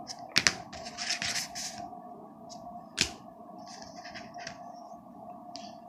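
Rigid plastic card holders being handled and set down on a stack: a sharp click about half a second in and another about three seconds in, with light scraping and rustling between.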